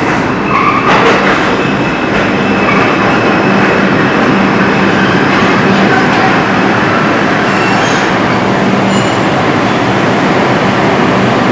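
R142 subway car running steadily at speed through a tunnel, heard from inside the car: a loud, even rumble of wheels on rail with a steady low hum. A few faint high-pitched squeals come in past the middle.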